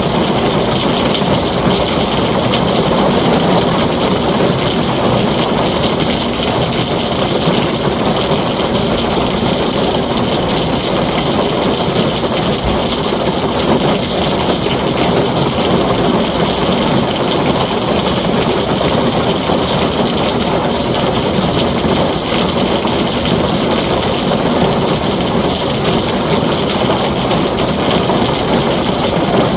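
Heavy rain pouring steadily on a tin roof, a dense unbroken hiss with no thunderclap standing out.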